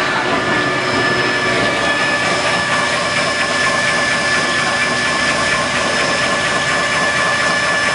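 Automatic sheet-metal hairline finishing machine running: a loud, constant mechanical noise with a steady high whine in it.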